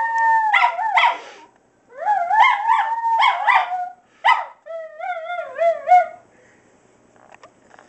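Two miniature schnauzers howling in several wavering bouts broken by short yelps, with the howls warbling up and down in pitch; they fall quiet about six seconds in.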